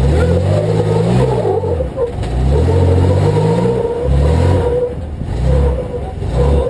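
Off-road vehicle engine revving in repeated surges, five or so bursts of throttle rising and dropping back, as it crawls over rock, with a steady whine running alongside.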